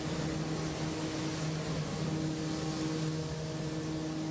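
Heat-treatment line machinery running with a steady mechanical hum of a few low held tones under an even hiss.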